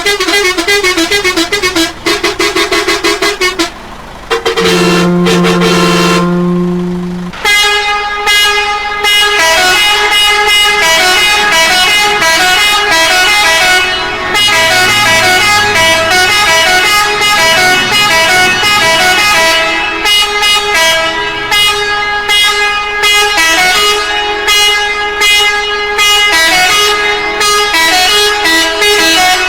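Multi-tone musical air horn playing a fast tune of short, quickly changing notes, very loud. About four seconds in it breaks off briefly, holds one chord for about three seconds, then the quick melody resumes.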